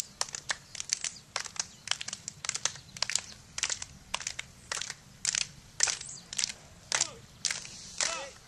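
A group of people clapping their hands, many uneven claps a second, not in unison. Voices call out near the end.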